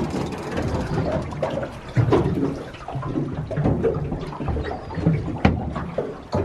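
Seawater sloshing and splashing against the side of a small boat, with irregular surges and a sharp knock about five and a half seconds in.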